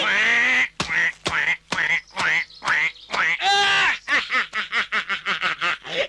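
Exaggerated cartoon voices: a held frightened cry, then a run of short, falling yelps about every half second, turning near the end into rapid cackling laughter.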